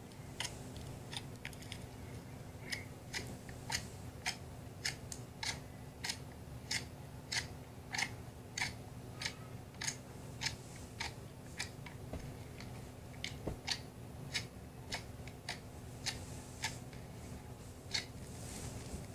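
Slime being pressed and squeezed by hand, giving a steady run of crisp pops and clicks, about two a second.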